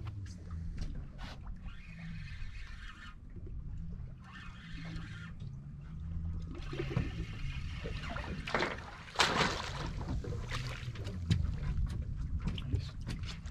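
Water sloshing against a boat's hull over a steady, choppy low rumble of wind on the microphone, with a louder rushing surge about nine seconds in.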